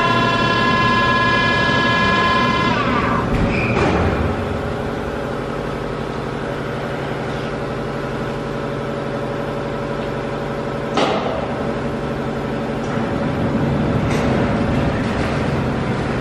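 Machine-shop machinery: a high whine made of several steady tones cuts off about three seconds in, dipping in pitch as it stops. A steady lower machinery hum runs on under it, with a few short knocks.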